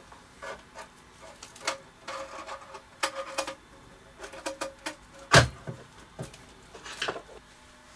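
Clicks, rattles and knocks of a CB radio microphone being swapped: the old mic's 5-pin DIN plug pulled from the radio's socket and the replacement mic's plug pushed in, its coiled lead handled against the set. The loudest knock comes about five and a half seconds in.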